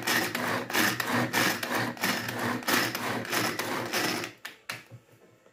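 Tupperware Turbo Chef pull-cord chopper being pulled repeatedly, about two to three pulls a second, its blades spinning through garlic, onion, bell pepper and mint to chop them finer. The pulling stops about four seconds in, followed by a few light knocks.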